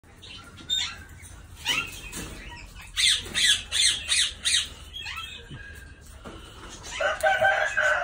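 Caged Alexandrine parakeets ('raw' parrots) screeching: a few single shrill calls, then a quick run of five about three a second, and a longer, harsher squawk near the end.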